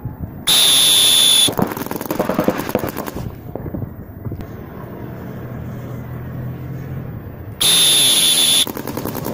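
Paintball markers firing in rapid runs of shots, with a loud, high-pitched signal tone sounding twice, about a second each time, once near the start and once near the end.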